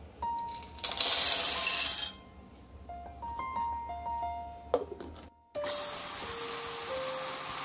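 Roasted peanuts poured into the steel jar of a Bajaj mixer grinder, a loud noisy rush of about a second. After a click as the lid goes on, the electric mixer grinder starts about five and a half seconds in and runs steadily, coarsely grinding the peanuts.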